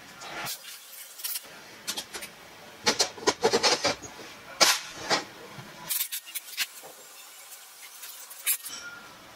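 Metal clicks, clinks and knocks from handling a Bosch P7100 inline diesel injection pump and small metal parts on a metal workbench, coming in irregular clusters, densest about three to four seconds in and again around six seconds.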